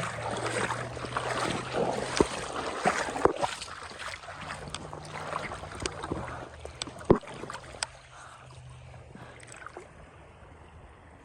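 Rushing, splashing river water with a few sharp clicks and knocks. It is loudest in the first half and quietens over the last few seconds.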